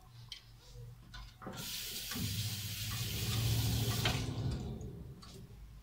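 Water running from a kitchen tap for about three seconds, starting about a second and a half in and fading out near the end.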